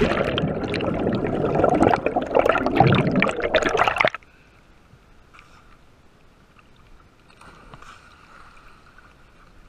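Water churning and bubbling around a camera plunged underwater, loud and turbulent for about four seconds, then cutting off suddenly to a much quieter faint steady hum with light water noise.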